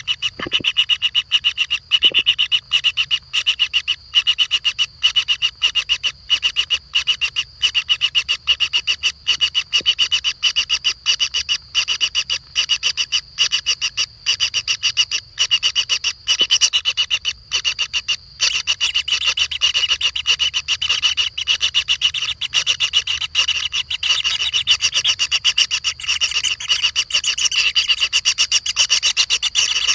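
An animal calling in a fast, continuous rattle that keeps breaking off briefly about twice a second.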